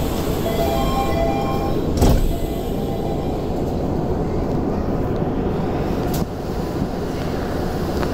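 Tokyu 5080 series subway train standing at a platform with its equipment humming steadily. A short electronic chime of a few tones sounds, then a heavy door thud about two seconds in, and a sharper click about six seconds in, typical of the doors closing before departure.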